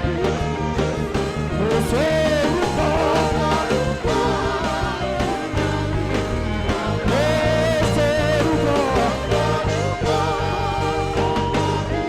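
Live gospel worship music: a saxophone carrying a wavering, gliding lead melody over a backing band with sustained low bass notes.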